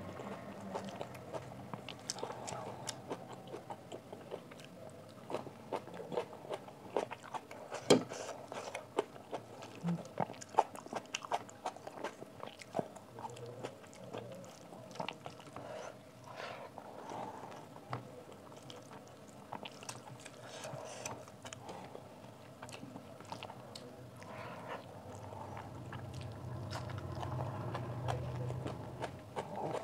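Close-miked eating: chewing and wet mouth clicks and smacks, mixed with the soft squish of fingers squeezing rice and curry together on a steel plate. Scattered sharp ticks run throughout, the loudest about eight seconds in.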